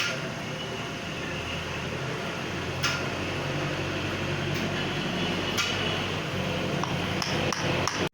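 Steady workshop machine hum with a few light metallic clinks and ticks, several of them close together near the end.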